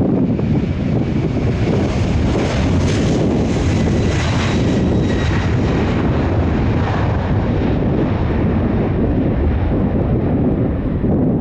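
Airliner engines passing, with a high whine that is loudest a few seconds in and then fades away. Heavy wind rumble on the microphone runs underneath.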